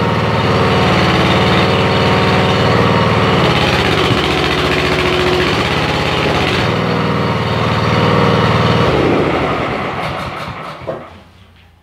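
Small gasoline engine driving the hydraulic pump of a homemade excavator, running steadily with its note shifting as the hydraulics are worked. About nine seconds in it slows and dies away as it is shut off.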